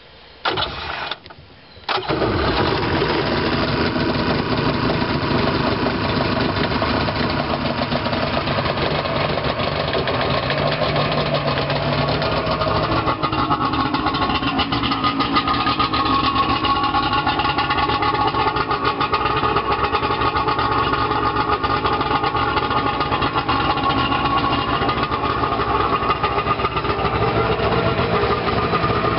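Rebuilt Yamaha Wave Venture 1100's two-stroke three-cylinder engine being started on its electric starter: a short crank, a brief pause, then it catches about two seconds in. It then runs steadily out of the water.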